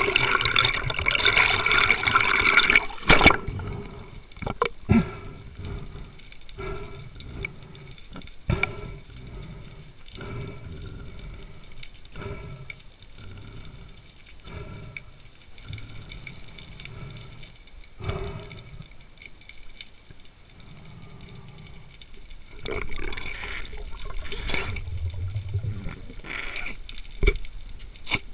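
Water rushing and bubbling around an underwater camera, loudest in the first three seconds and again near the end, with a run of soft knocks about once a second in between.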